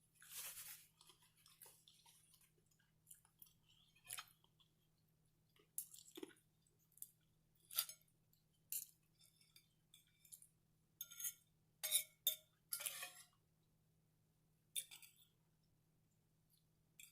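Eating sounds from a mukbang meal of cabbage: quiet chewing and mouth clicks, short and scattered at irregular intervals, over a faint steady low hum.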